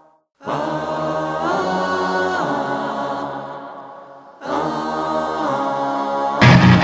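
Background music: a choir chanting long held notes in two phrases, each coming in and fading away. Near the end, louder band music with guitar comes in.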